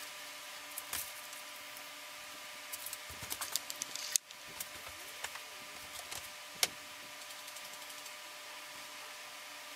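Steady room hum and hiss with scattered light clicks and taps, a cluster of them about three to four seconds in and one sharper click a little later.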